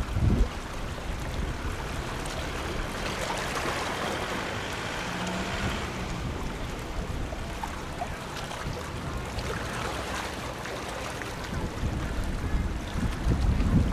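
Fast patrol boat running at speed across open water, a steady distant engine drone mixed with the rush of its wake and water. Wind rumbles on the microphone, in gusts at the start and near the end.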